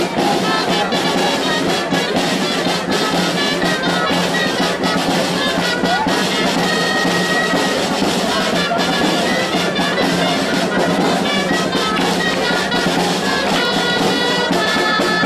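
Lively festive music led by loud, brass-like horns over a steady drum beat.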